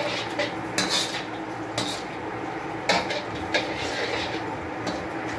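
Slotted metal spatula stirring a thin, watery gravy in a wok, scraping the pan with several sharp clinks of metal on metal over a steady low hiss.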